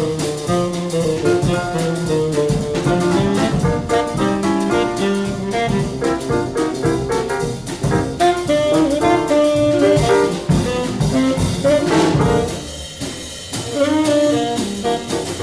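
Tenor saxophone playing the lead line over a jazz rhythm section of bass and drum kit: a small-group bebop recording played from a vinyl LP.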